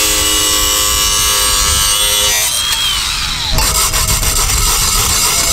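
A power tool cutting into the steel blade of a concrete trowel to reshape it into a narrow scraper: a steady whine over a harsh hiss that shifts in pitch and character about two and a half seconds in and again about a second later.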